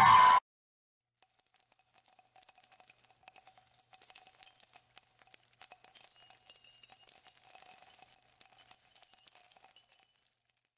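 Loud live hard-rock music cuts off suddenly. After about a second of silence, faint jingling of small bells begins: a shimmer of high ringing with many tiny clicks, which fades out just before the end.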